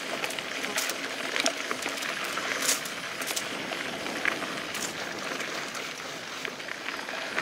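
Mountain bike rolling along a dirt singletrack: a steady rush of tyres on dirt and gravel, with scattered sharp clicks and rattles from stones and the bike.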